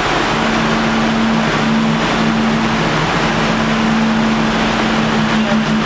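Ship engine-room machinery noise with a steady low hum that comes in just after the start. A second, lower hum joins it, and near the end both begin to pulse a few times a second.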